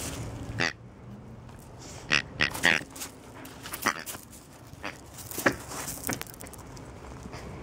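A dog's squeaky hippo toy being squeezed in its mouth, giving a string of short, irregular squeaks, the loudest bunched around two to three seconds in.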